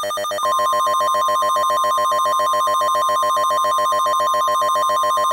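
Emergency alert attention tone: a steady, piercing single beep tone layered over a harsh, buzzy alarm tone that pulses rapidly, about ten times a second. The pulsing starts just before, and the steady tone joins about half a second in.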